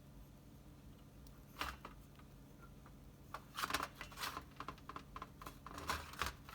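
Small metal parts of a disassembled ignition distributor clicking as they are handled and fitted together: one click about a second and a half in, then a run of quick clicks and rattles from about three seconds in until near the end.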